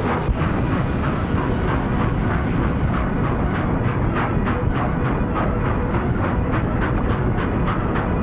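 Steam-hauled passenger train running past at speed, a streamlined New Haven locomotive and its cars. A steady rushing rumble is joined from about three seconds in by rapid, even clicking of several beats a second.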